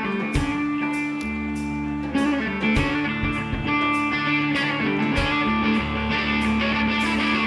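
Live rock band playing a slow, guitar-led song, with sustained guitar chords over bass and a heavy drum hit about every two and a half seconds.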